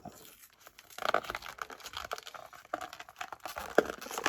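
Plastic blister packaging crinkling and crackling as it is worked loose from its cardboard backing card, with irregular sharp clicks starting about a second in.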